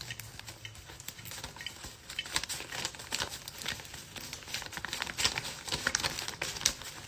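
Rustling and crackling: many small, irregular clicks and rubs, growing busier in the second half.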